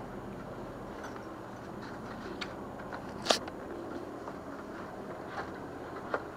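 A boat engine runs with a steady low hum. Scattered small clicks and knocks sound over it, the sharpest about three seconds in.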